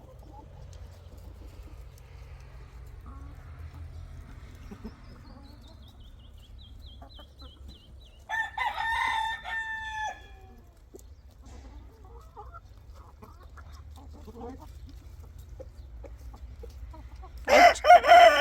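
Rooster crowing twice, once about halfway through and again near the end. Between the crows the flock makes quieter clucking sounds.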